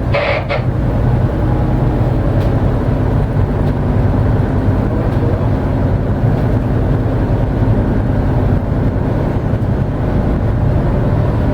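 Motor yacht's engines running steadily underway, a constant low drone heard from on board with water and wind noise over it.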